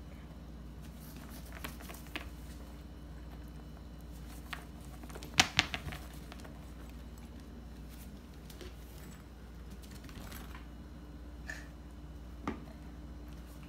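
Yorkshire terrier puppy moving about on a hard floor: scattered light clicks and taps of claws, with two sharper knocks close together about five and a half seconds in, over a low steady room hum.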